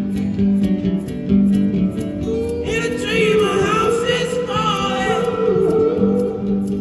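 Live acoustic band music: acoustic guitar with held notes, and wordless singing that swells for a couple of seconds in the middle.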